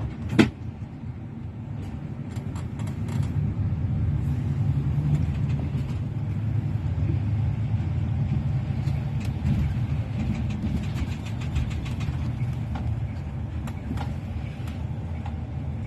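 Car running on the road, a steady low engine and road rumble that grows louder a few seconds in, with one sharp knock about half a second in.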